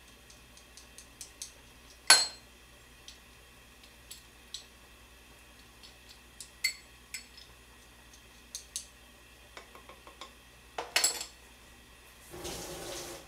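Utensils clicking and clinking against a plate: scattered light taps, one sharper clink about two seconds in and a quick cluster near the end. Just before it ends, a kitchen tap runs for about a second.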